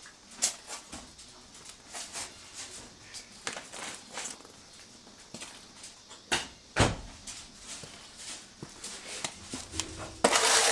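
Scattered light clicks and knocks, with one sharper knock about seven seconds in and a short burst of rustling noise near the end.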